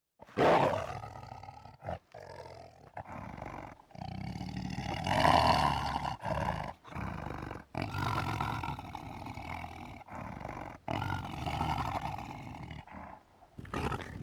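A run of animal roars, a film sound effect, broken by short pauses, with the loudest about five seconds in.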